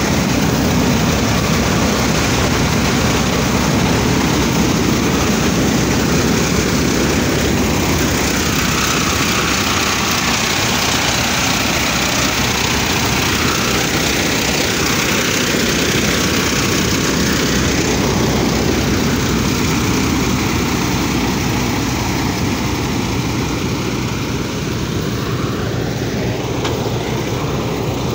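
Combine harvester running steadily while harvesting grain: a loud, unbroken din of engine and threshing machinery.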